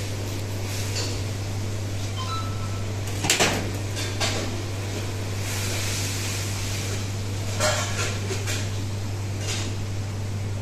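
A few light knocks and clinks as a ceramic plate and food on it are handled on a steel counter, the loudest about three seconds in, over a steady low hum.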